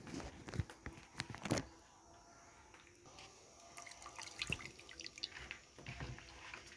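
Coconut milk being squeezed by hand from grated coconut and poured through a metal strainer into a bowl: irregular splashing and dripping of liquid, heaviest in the first two seconds and again around the middle.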